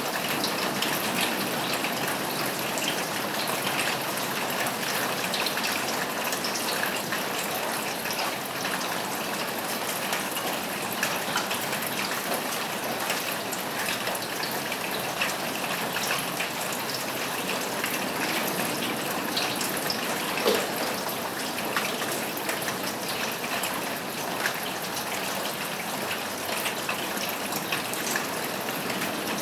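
Steady rain falling on a roof, a dense hiss dotted with the ticks of single drops, one sharper tick about twenty seconds in.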